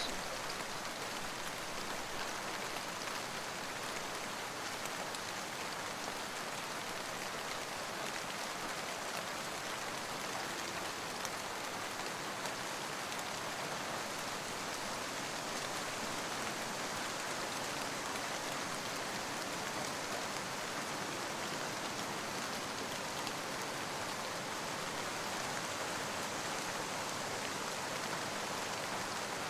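Steady, even rush of running stream water.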